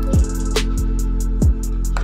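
Background music with a steady beat: deep kick drums that drop in pitch, fast hi-hat ticks and a sustained bass line.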